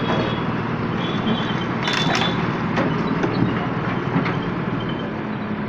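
JCB backhoe loader's diesel engine running steadily, with a sharp clatter about two seconds in and a few more knocks after as the backhoe arm works among the broken brick and tile rubble.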